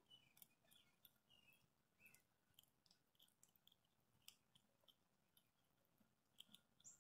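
Very faint gnawing and clicking of a gray squirrel chewing a walnut held in its paws, with a few faint high chirps in the background.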